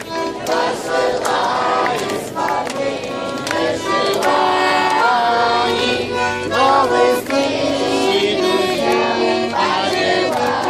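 A group of children singing a song together over instrumental backing music.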